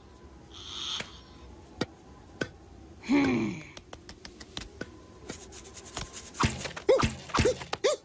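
Cartoon hyena's vocal sound effects: a short falling grunt about three seconds in, then a run of short chuckles, about two a second, with light clicks, from about six seconds as he laughs.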